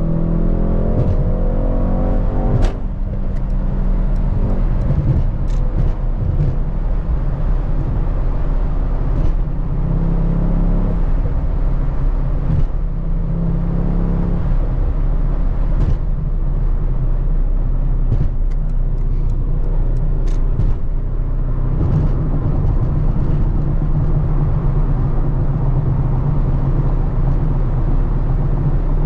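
Mercedes-AMG GT 63 S's twin-turbo V8 accelerating, its pitch rising for the first few seconds and ending in a sharp crack as the revs drop, then running steadily at a lower pitch while driving.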